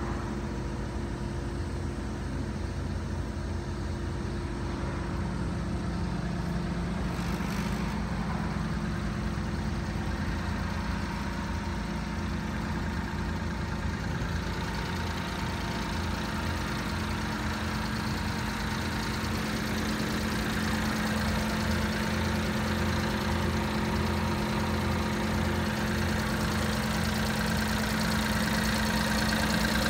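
Mitsubishi Minicab kei truck's engine idling steadily, louder toward the end.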